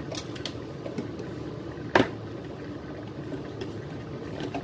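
Pot of spiced fish broth simmering on the stove with a steady hiss and bubbling, and a single sharp tap about two seconds in, with a few fainter ticks around it.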